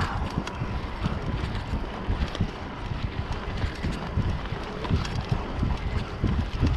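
Wind buffeting the microphone of a mountain bike riding a bumpy dirt trail, with irregular low thumps and short clicks and rattles from the bike over the ground.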